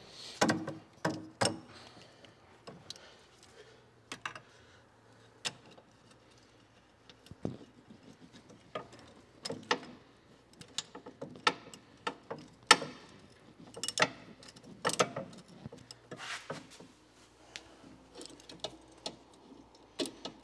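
Hand ratchet clicking in short, irregular runs, with sharp metallic clinks of tools on steel, as the rear wheel hub bolts are backed out of the knuckle.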